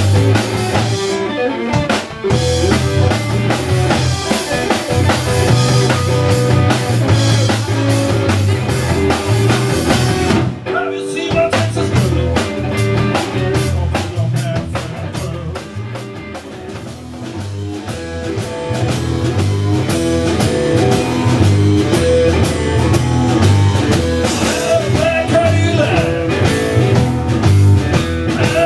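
Live blues-rock band playing: electric guitar over bass and drum kit with a steady beat, briefly dropping out about ten seconds in and easing off for a couple of seconds past the middle before building up again.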